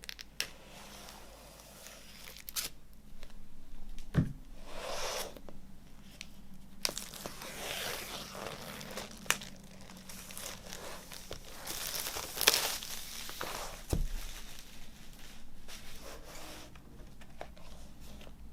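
Packaging being torn open and crumpled by hand: irregular crinkly tearing and rustling, with a soft thump about four seconds in and another near fourteen seconds.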